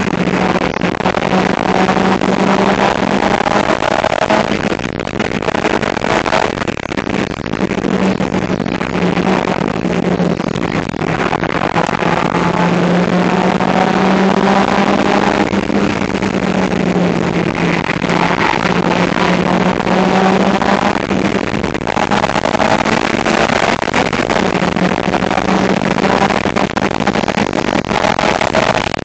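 Suzuki Swift Sport's engine running hard as the car is driven at speed, its note drifting up and down with brief breaks a few times, under a loud, rough rushing noise.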